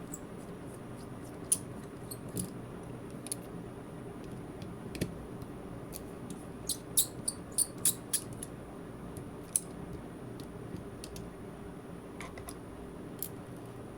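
Small sharp clicks and taps of hand tools against a smartwatch's parts during its teardown, scattered irregularly, with a quick run of them about seven to eight seconds in, over a steady low hum.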